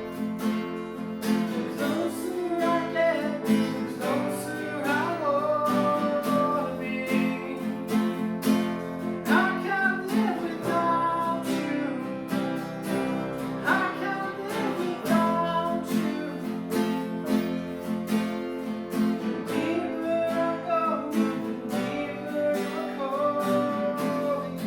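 Worship song with an acoustic guitar strummed in a steady rhythm and a voice singing the melody over it.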